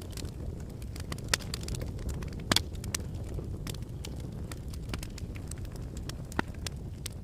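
Wood fire burning in a fireplace: a steady low rumble of the flames with irregular crackles and sharp pops from the logs, the loudest pops about a second and a half in, two and a half seconds in and near the end.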